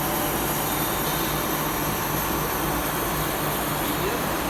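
C9372 brake drum/disc lathe running with a steady mechanical hum and a faint high whine.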